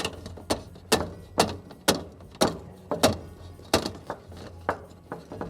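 Sharp knocks, about two a second, each with a short ringing tail: something frozen being struck over and over to break it loose from the ice.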